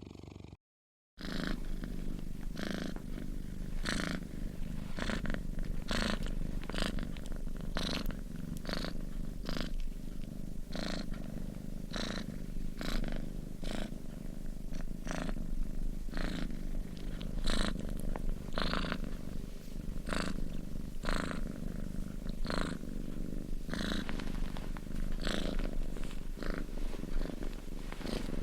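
Domestic cat snoring in its sleep: a quick, even rhythm of raspy breaths over a steady low rumble. The sound cuts out for a moment near the start.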